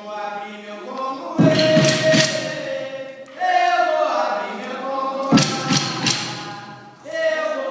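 Singing of a maculelê chant in long held notes, accompanied by sharp percussion strikes. The strikes come in two clusters of several quick hits, about a second and a half in and again about five and a half seconds in.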